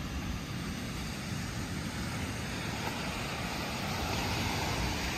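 Wind buffeting the microphone as a steady low rumble, over the even hiss of surf washing on the beach, the hiss swelling a little near the end.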